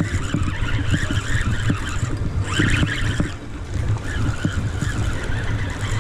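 Wind buffeting the microphone in a heavy, gusty rumble over the hiss of sea wash around coastal rocks, with a louder rush of water a little before halfway through.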